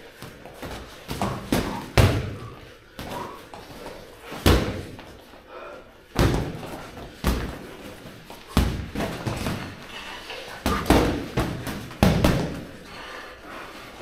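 Boxing gloves landing punches in sparring: a dozen or so sharp thuds and slaps at irregular intervals, some in quick pairs.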